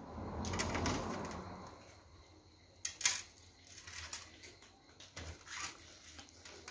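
A low rushing sound swells and fades over the first two seconds. Then a kitchen knife knocks and scrapes on the charred skin of a fire-roasted breadfruit on a metal tray, with a sharp knock about three seconds in the loudest.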